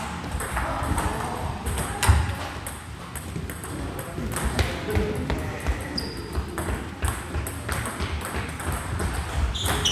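Table tennis ball clicking sharply off rackets and the table in rallies, a quick irregular run of hollow ticks.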